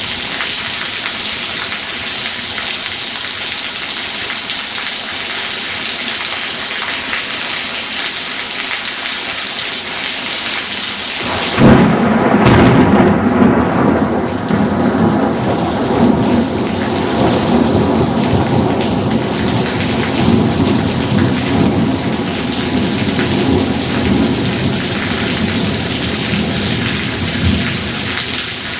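Steady downpour of rain, then, about twelve seconds in, a sudden close thunderclap that breaks into a long rolling rumble lasting to the end, with the rain going on underneath.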